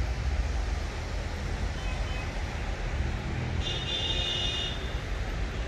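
Steady low street rumble. About three and a half seconds in comes a brief high-pitched tone lasting about a second.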